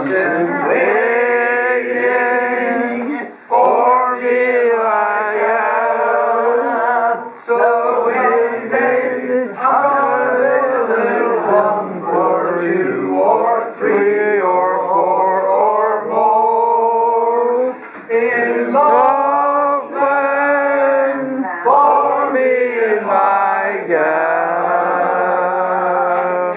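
Several men singing a song together, holding long notes with short breaks between phrases.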